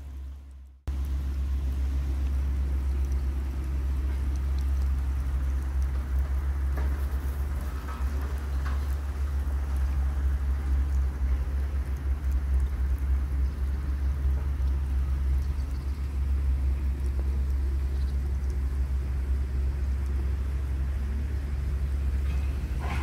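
Wind buffeting the microphone outdoors: a steady, gusting low rumble.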